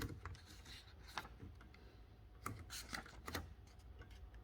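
A handful of faint mechanical clicks and clacks from a 1908 Remington No. 7 typewriter's parts being worked by hand, most likely the paper release lever on the left.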